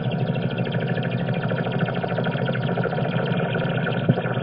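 A steady, dense drone with a fast fluttering texture and no pitched melody, presented as the 'sound' of a moon of Uranus.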